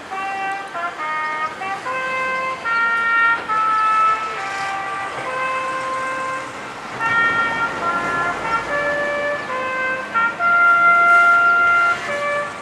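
A melody played from a clock tower, one held note at a time with a new note every half second to a second, sounding around noon as a tower tune.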